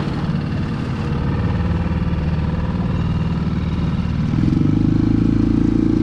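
Dinghy outboard motor running steadily, then opening up about four seconds in, louder and higher in pitch.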